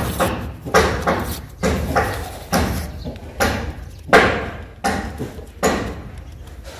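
Hand-held rubbing strokes, a small red part worked against a folded white paper sheet: about eight short scraping strokes, roughly one a second, stopping shortly before the end.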